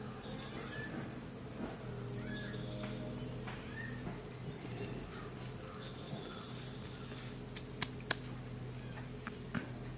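Outdoor ambience with short, faint bird chirps scattered throughout over a steady low hum, and a few sharp clicks near the end.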